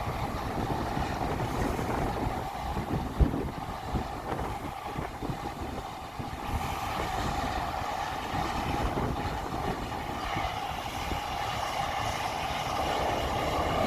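Harvest machinery running steadily: an engine drone with a sustained whine, and scattered knocks and rattles, as the machine is run to clean it out at the end of harvest.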